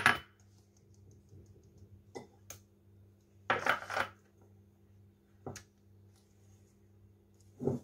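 Metal spoon knocking against a mesh sieve and a glass mixing bowl while flour is sifted, then clinking in the bowl as the flour is stirred in. The knocks are scattered, with the loudest cluster about halfway through, over a faint steady hum.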